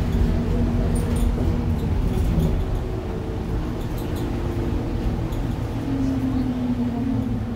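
Cabin noise of a Mercedes-Benz Citaro G articulated bus driving through a turn: a steady low engine and road rumble, with the engine note rising slightly near the end.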